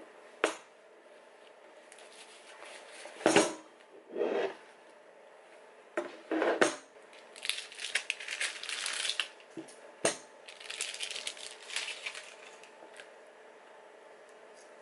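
Metal cake tins and their lids handled on a table, knocking and clinking several times, loudest about three seconds in, with stretches of packaging rustling around the middle.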